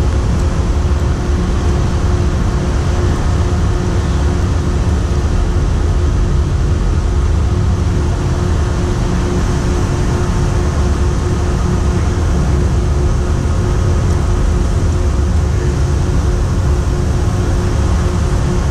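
Steady noise of the research vessel Mirai under way at sea: a constant low engine and machinery rumble with a faint steady hum, mixed with wind and the rush of the sea.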